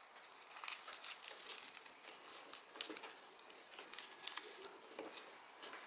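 Faint rustling and crinkling of origami paper being folded and creased by hand, with quick, irregular crackles as the folds are pressed down.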